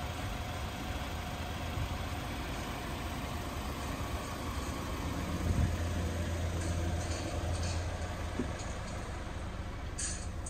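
Mercedes-Benz Sprinter van engine idling: a steady low hum that grows a little stronger about halfway through, with a few faint clicks.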